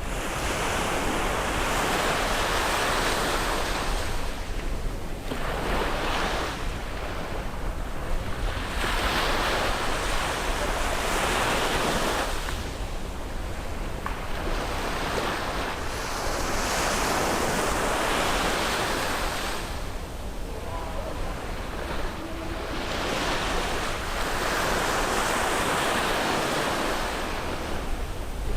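Sea waves breaking and washing up the shore one after another, the surf swelling and falling back every few seconds.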